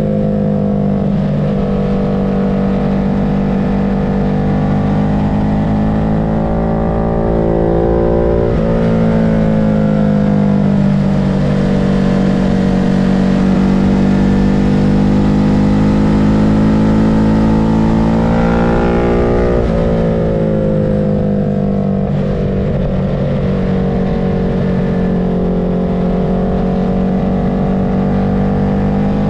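Vehicle engine heard onboard at track-day pace, running hard, its pitch slowly swelling and sagging, with two sharp drops in revs about eight and a half and nineteen and a half seconds in.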